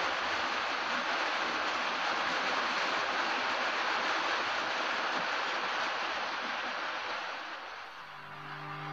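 Steady rain falling, an even hiss without distinct drops or events, which stops about eight seconds in. Faint plucked-guitar music starts near the end.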